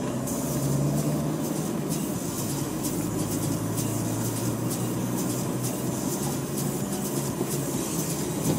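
Car engine hum and tyre and road noise heard from inside the cabin while driving at steady speed.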